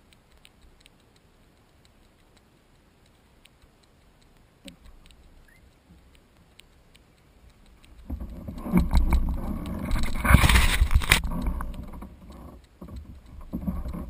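Knocks, bumps and scraping on a plastic sit-on-top kayak as a person crouches and sits down into its seat close to the mounted camera. The noise is loud for about four seconds from about eight seconds in, then comes back in shorter bumps near the end, after faint scattered clicks.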